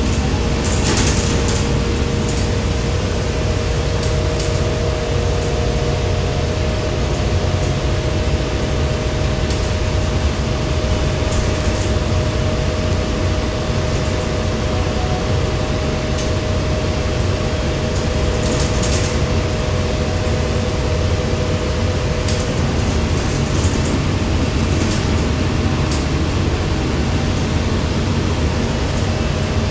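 Cabin noise inside a 2020 Gillig BRT 40-foot transit bus under way: a steady rumble of engine and road with a constant whine, and a few brief hisses.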